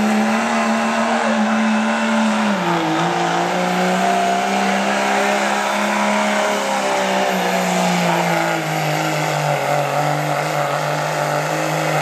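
Diesel pickup truck's engine at full throttle while pulling a weight sled, running hard and steady at high revs out of its exhaust stacks. Its pitch steps down a little about a quarter of the way in and again about two-thirds in, as the sled's load pulls the engine down.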